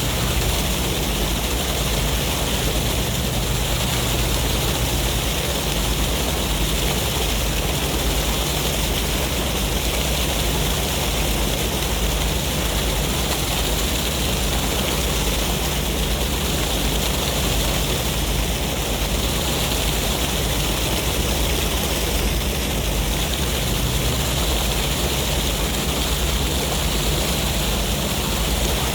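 Steady roar of ocean surf and sea wind, with a deep low rumble under a bright hiss; the level holds even, with no single wave break standing out.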